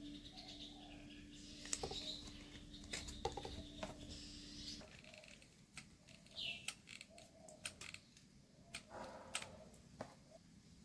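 Faint handling noises from small craft parts being assembled: scattered light clicks and scratches. A low steady hum stops about halfway through.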